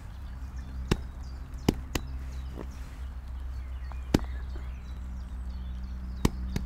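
A few sharp single taps at uneven intervals, about five in all, like heavy raindrops landing on the canopy of a fishing umbrella. A steady low hum runs underneath.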